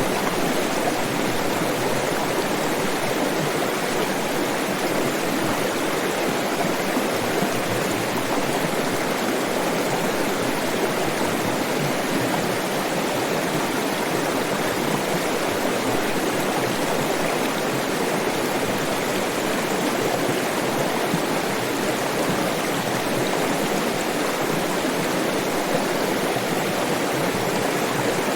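Flowing stream water running steadily, an even rushing with no breaks or changes.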